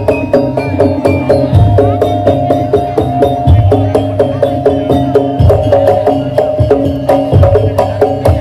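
Madurese daul percussion ensemble playing: fast, even drum and block strikes under a repeating pitched melody, with a deep drum hit about every two seconds.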